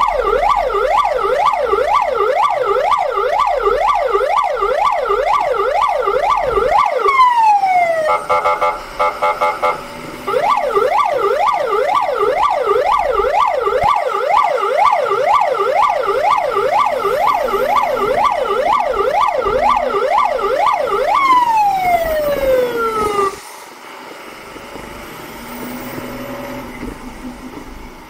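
Fire truck's siren sounding a fast yelp, its pitch sweeping rapidly up and down. About seven seconds in it winds down in a falling glide and gives a brief rapid pulsing tone, then the yelp resumes. It winds down again a little after twenty seconds, leaving quieter road noise.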